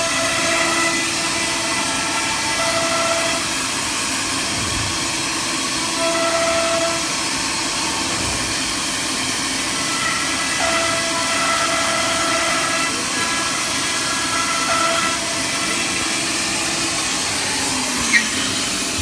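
Wood CNC router running: a steady hiss with a low hum and a whining tone that comes and goes in stretches of a second or two, then a short downward glide and one sharp click near the end.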